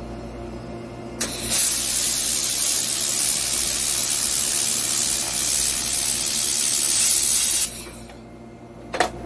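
1500 W handheld laser welder torch welding thin stainless steel sheet: a loud, steady hiss that starts with a click about a second in and cuts off about six seconds later. A steady low hum runs underneath, and a sharp click comes near the end.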